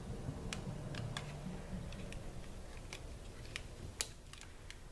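Light clicks and taps of hands handling cardstock: fingers pressing a small paper holly leaf onto a glued label on a paper pouch, with one sharper tap about four seconds in.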